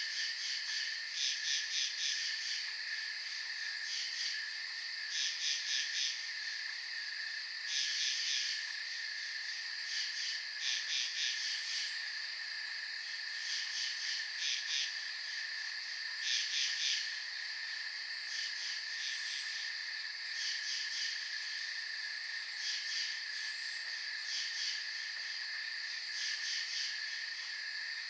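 Late summer night insects: a steady high-pitched chorus of crickets, with louder rapid pulsed chirps breaking in every second or two.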